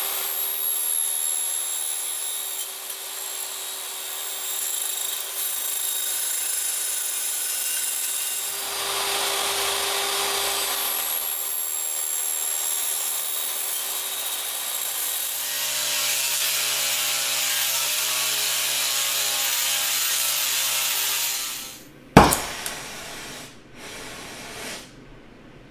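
A power tool cutting thin sheet steel, running steadily for about 21 seconds as its load shifts, then stopping. A single sharp metallic clank follows soon after.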